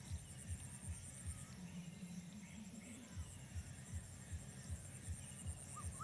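Faint background music with a steady low pulse, about three soft beats a second, and thin high tones and light chirps above it.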